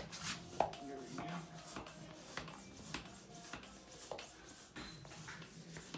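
Hands turning a fat-bike wheel with a freshly fitted tyre: irregular rubbing and light clicks of the tyre, rim and spokes being handled.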